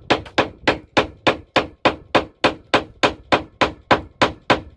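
Rapid, steady hammer blows on a wooden board, about three to four strikes a second, knocking down the wood grain so that a too-tight piece will fit.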